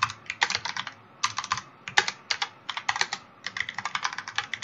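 Typing on a computer keyboard: quick runs of key clicks in short bursts, with brief pauses between the bursts.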